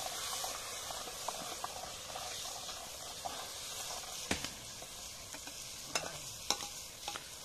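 Mutton frying and sizzling in a metal pot over a wood fire while a ladle stirs it. Several sharp clicks come in the second half.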